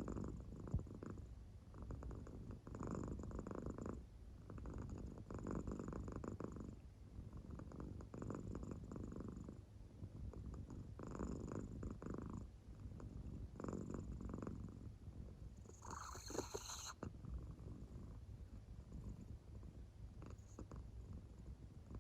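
An American Shorthair cat purring softly in deep sleep, the purr swelling and fading with each breath about every two and a half to three seconds. A brief sharper sound comes about sixteen seconds in.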